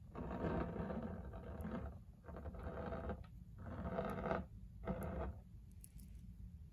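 Water and corn syrup sloshing inside a glass jar with a metal screw lid, shaken by hand in four bursts, each shorter than the one before.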